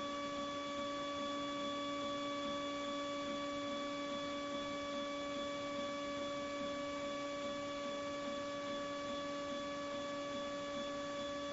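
Thermtech dental porcelain furnace's tray lift running as the firing tray rises to close the firing chamber: a steady hum on one pitch with higher overtones.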